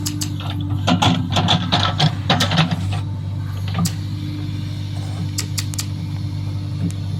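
A small electric motor hums steadily, with plastic clicks and rattles that come thickest in the first few seconds.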